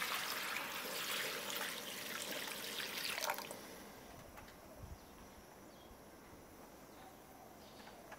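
Water pouring from a bowl into an enamel bowl of dried vermicelli to soak them. It runs steadily for about three and a half seconds and then stops.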